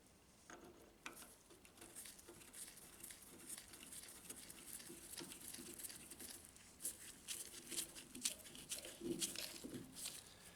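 Faint handling noise: scattered small clicks, taps and rubs as the freshly turned metal knob is handled and fitted to the centre punch, more frequent near the end.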